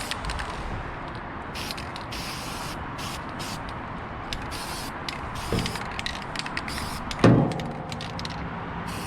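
Aerosol spray paint can of chassis black hissing out in many short bursts with brief pauses between. A sharp knock with a short low ringing comes about two thirds of the way through and is the loudest sound. A smaller knock comes a little before it.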